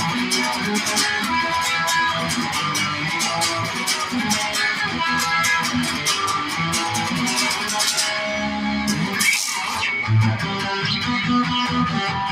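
Guitar-driven rock music with electric guitar over a steady beat, with a brief break in the texture about eight seconds in.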